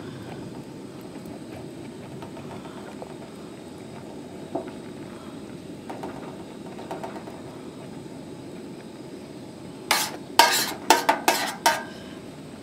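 Metal spoon working in a stainless steel pan of simmering dye bath. Near the end comes a quick run of about six sharp clinks of the spoon against the steel. A steady low hiss runs underneath.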